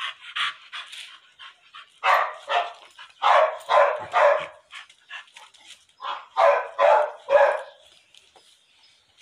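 A dog barking in three short bouts of two to four barks each, with fainter short yelps in the first two seconds.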